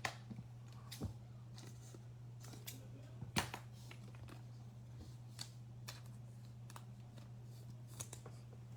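Trading cards being handled and set down: scattered light clicks and taps, the loudest about three and a half seconds in, over a steady low electrical hum.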